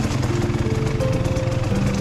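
Enduro motorcycle engine running steadily under way, with background music playing a melody of held notes over it.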